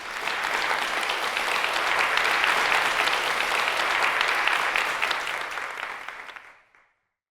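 Audience applauding at the end of a talk, swelling up at once and fading out over the last second or so after about six seconds.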